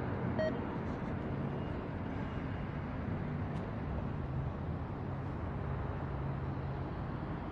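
Diesel locomotive idling with a steady low drone over background noise. A short electronic beep sounds about half a second in.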